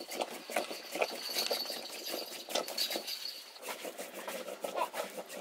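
A stick stirring nettle curry in a metal pot: a rapid, irregular run of light clicks and scrapes against the pot, with a short lull about three seconds in.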